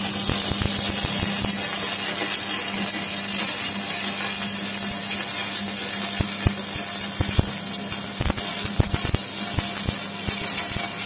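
Shielded metal arc (stick) welding arc burning steadily as a consumable electrode lays a bead along a lap joint: a continuous crackling sizzle with frequent sharp pops over a low steady hum.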